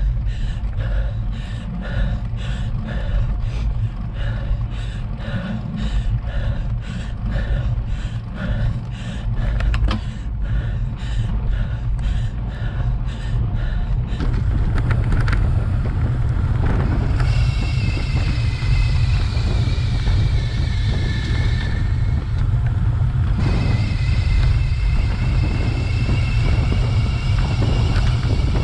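Wind buffeting and tyre rumble on a bicycle-mounted action camera during a ride on a rough lane. For the first half a rhythmic sound repeats about twice a second. After about fifteen seconds the rumble gets louder and a high whine sliding slowly down in pitch comes in, broken off for a second or so near the end.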